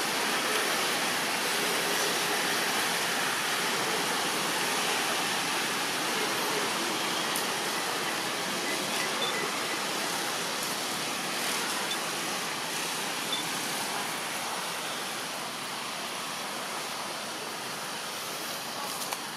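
Steady rushing background noise, even and unbroken, with a few faint clicks.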